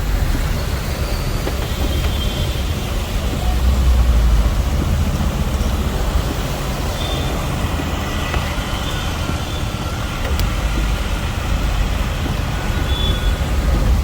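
Road traffic on a rain-flooded city street: a steady low rumble of vehicle engines under a continuous hiss of noise, swelling as heavier vehicles pass about four seconds in and again near the end.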